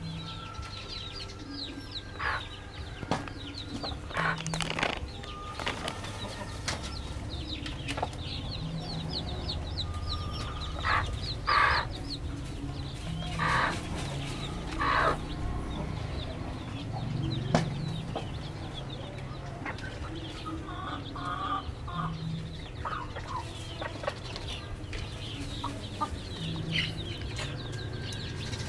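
Domestic chickens clucking in short, irregular calls, a few louder ones about halfway through. Faint, quick high chirps and a steady low hum run underneath.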